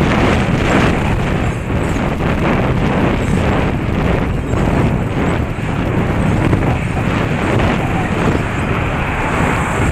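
Wind buffeting the microphone of a bike-mounted camera while cycling along a road: a loud, steady rushing noise that keeps wavering.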